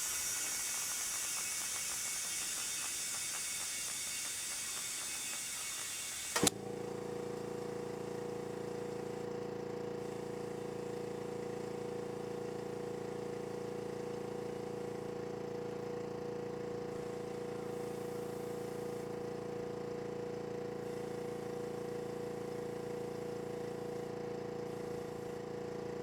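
Steady hiss of air or sealant rushing into the punctured tyre for about six seconds, ending in a sharp click. A small electric motor then runs with a steady drone, typical of a portable tyre-inflation compressor pumping the tyre up.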